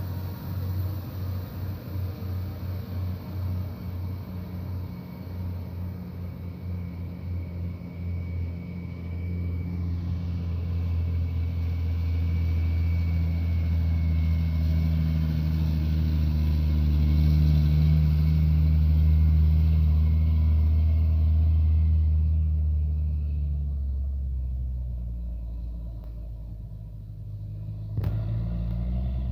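Heavy trucks' diesel engines on a hill road: a pulsing low rumble at first, then a Hino tanker truck's engine growing louder as it passes close, about two-thirds of the way through, and fading as it drives away. A brief click sounds near the end.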